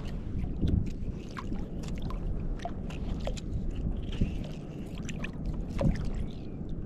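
Shallow sea water sloshing and lapping around a wading angler, with scattered small splashes and drips.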